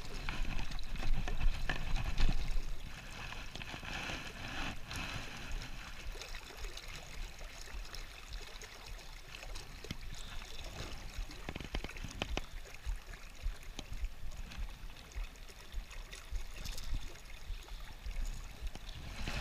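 Fast-flowing river water swirling and splashing around a wader's legs and a landing net pushed through it, louder for the first few seconds and then a steadier, softer wash, with a few small clicks.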